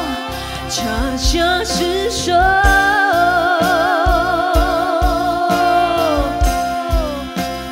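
A female singer sings a Mandarin pop ballad live into a microphone over band accompaniment with a steady low drum beat. She holds one long note with vibrato through the middle, then the line falls away.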